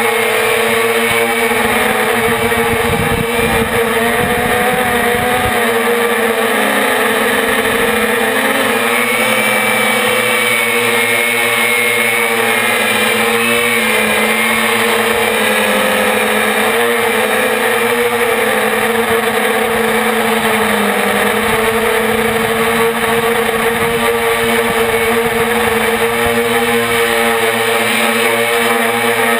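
Onboard sound of a 450-size quadcopter's brushless motors and propellers in flight: a steady buzzing whine whose pitch wavers gently up and down as the throttle changes, with wind rumble on the microphone now and then, most strongly a few seconds in.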